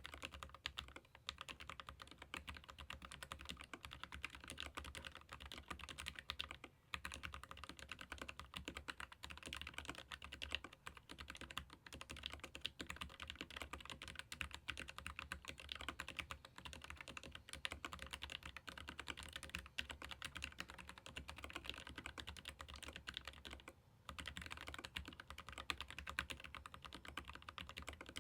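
Continuous fast typing on a Keychron K15 Pro Max ergonomic mechanical keyboard with Gateron low-profile red linear switches: a dense, even stream of key clacks, broken by short pauses about seven seconds in and about four seconds before the end.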